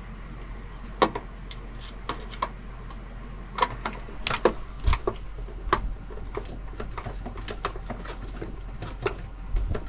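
Irregular clicks, taps and knocks of hands threading a right-angle brass hose fitting and working hose onto a pump inlet, over a steady low hum.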